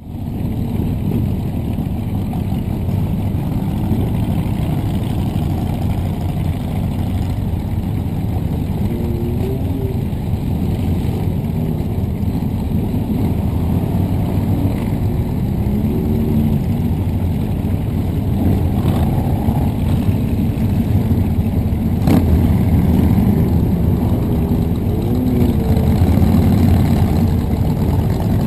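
Several motorcycle engines running close by: a steady low rumble of idling engines, with bikes revving up and down now and then as they pull out past in a line, and one sharp click about three-quarters of the way through.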